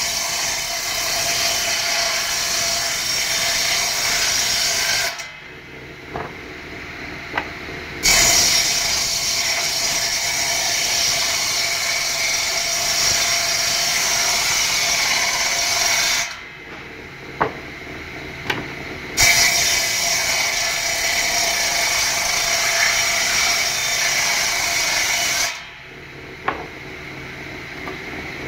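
Table-mounted circular saw cutting pallet boards crosswise into short blocks: three long stretches of blade-in-wood noise, each several seconds long. Between them it drops quieter for a few seconds, with a few short knocks.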